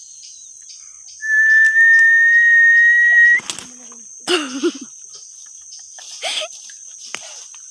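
A person whistles one long, steady note that rises slightly in pitch and cuts off suddenly; it is the whistle used to call snakehead fish out of hiding. Insects chirp steadily in the background.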